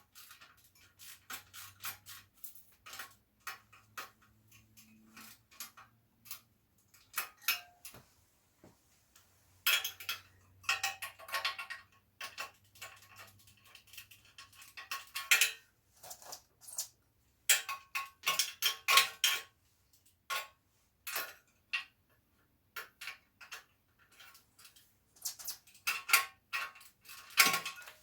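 Socket ratchet clicking in several short runs, with metal tool clinks in between, as the 10 mm bolts holding a motorcycle's front mudguard are tightened.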